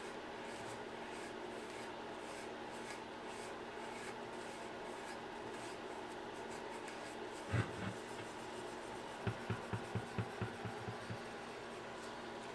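A rag rubbing mag and aluminum polish onto an aluminum engine part: faint, repeated rubbing strokes. A single thump comes about halfway through, and a quick run of light knocks near the end.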